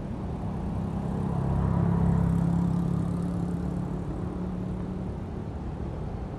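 A motor vehicle passing: its engine rumble swells about a second and a half in and fades over the next few seconds, over a steady low rush of wind and fast-flowing floodwater.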